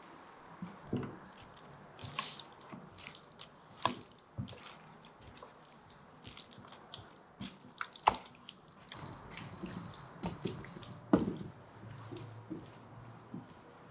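Irregular wet squelches, drips and small clicks of raw chicken pieces being mixed with a tomato-and-water marinade.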